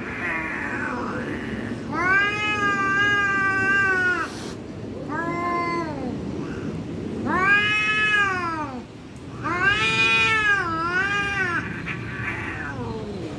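Two cats yowling at each other in a standoff: a series of long, drawn-out wails, each one to two seconds, rising and falling in pitch. These are the threatening yowls that come before a cat fight.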